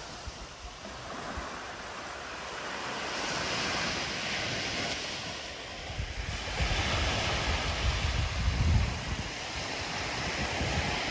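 Sea waves washing onto the beach, a steady rushing that swells and eases, with wind buffeting the microphone in gusts from about six seconds in.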